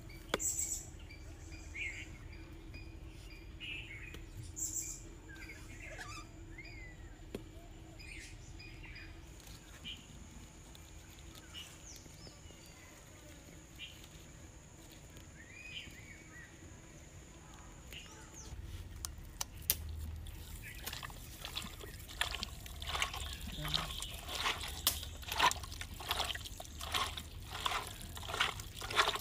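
Birds chirping over a faint steady hum. Then, about two-thirds of the way through, rapid wet squelching strokes as hands knead raw chicken pieces into red spice paste in a clay pot.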